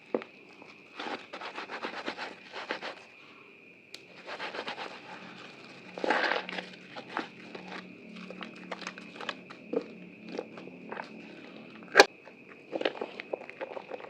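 Wet, soaked soap being worked by hand in lather, with irregular crackling, clicking and squishing, and one sharp click near the end.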